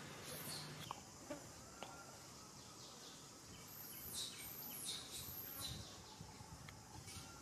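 Faint, high-pitched bird chirps: a few quick downward-sweeping calls, one near the start and a cluster of three about four to six seconds in, over a faint steady background hiss.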